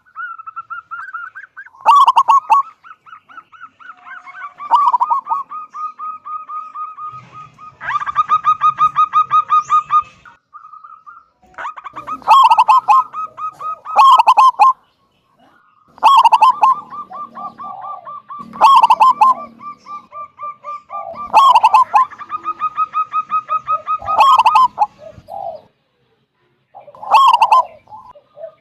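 Zebra dove (perkutut) singing a loud call, phrase after phrase about every two to three seconds. Each phrase is a few emphatic coos followed by a fast, rippling trill, and one long trill runs near the middle.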